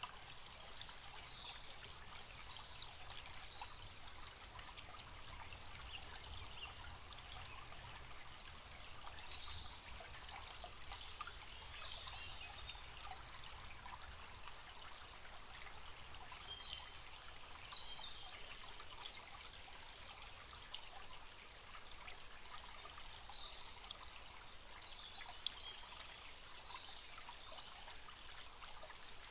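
Small forest stream trickling steadily over stones, with birds giving short high chirps every few seconds.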